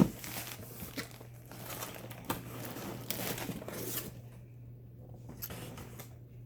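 Packaging rustling and crinkling with scattered light clicks as items are lifted out of a box, after a sharp knock right at the start. A steady low hum runs underneath.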